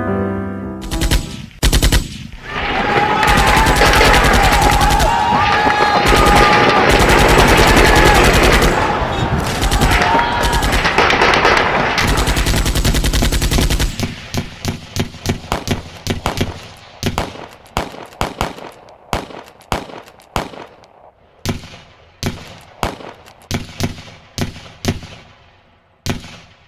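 Gunfire: a few sharp shots, then about ten seconds of sustained rapid automatic fire, then scattered single shots that come further apart and fade away.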